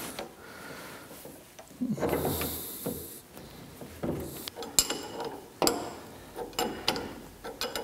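Metal clinks and scraping as the on-off lever and its bolts are fitted up under a lathe apron: a scraping stretch about two seconds in, then a string of sharp metallic clicks over the second half.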